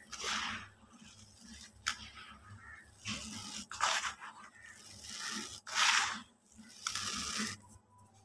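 Dry cement and concrete lumps being crushed and crumbled by hand in a plastic basin: gritty crunching and the hiss of falling powder, in several short bursts with a sharp click or two between them.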